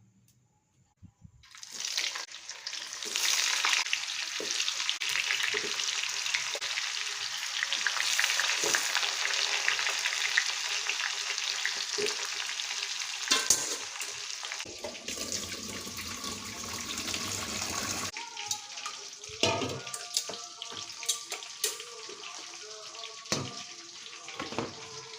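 Cassava pieces frying in hot oil, a dense sizzling crackle that starts about a second and a half in and thins to a quieter sizzle with scattered clinks for the last several seconds.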